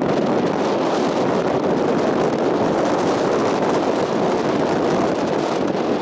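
Strong wind blowing across the microphone, a steady rushing noise.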